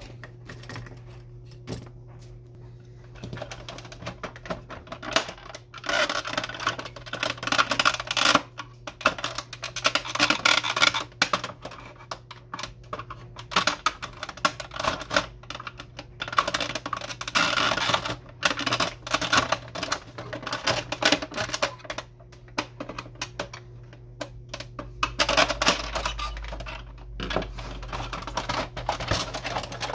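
Plastic housing of an Epson XP-340 inkjet printer being handled and pried apart: dense runs of clicks, rattles and scrapes as a screwdriver works at the snap-fit clips and the side panel is pulled loose, over a steady low hum.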